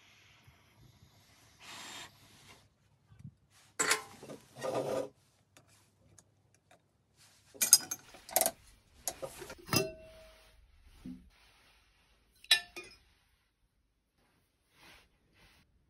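Scattered clinks, taps and scrapes of metal tools against a small brass piece and hard surfaces, the sharpest clinks in the middle, one with a short ring.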